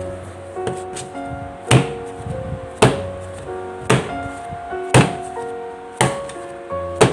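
Six heavy thuds about once a second, each a lump of bread dough slammed onto the work surface during hand kneading to bring it to a smooth, elastic stage, over background music.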